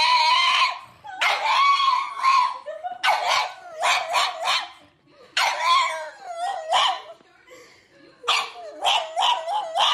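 A pug howling and whining in a series of about five drawn-out calls, its pitch wavering and warbling within each call, with short pauses between.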